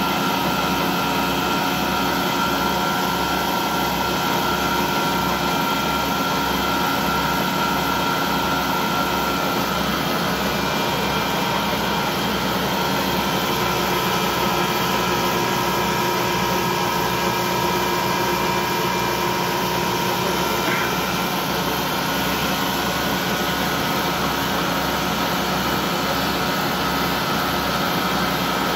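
Vertical lathe running steadily as its tool cuts a groove into a large metal ring under coolant: an even machine drone with several held tones over a faint low pulsing.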